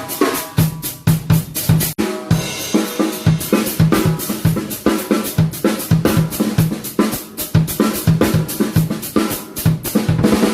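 Drum kit played in a fast, steady rock beat: bass drum, snare and cymbals struck continuously, with a brief dropout about two seconds in.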